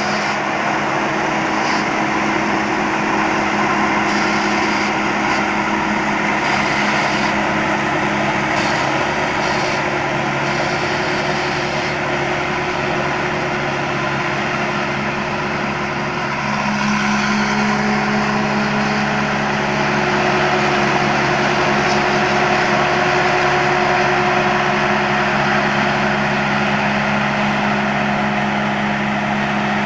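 Thai Seng 'Super Jiw' combine harvester's five-cylinder turbo diesel engine running steadily under load. Its note shifts and grows a little stronger about halfway through.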